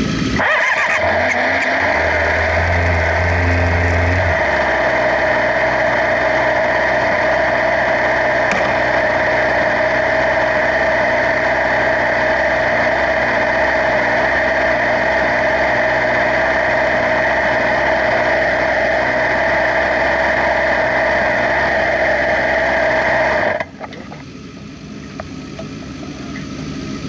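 Motorcycle engine running steadily and loud, then dropping off abruptly about 23 seconds in, after which a quieter engine sound slowly grows louder.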